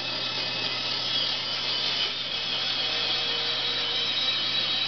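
INCA bandsaw running while its blade cuts through a curved turned wooden workpiece: a steady sawing hiss over a constant low motor hum.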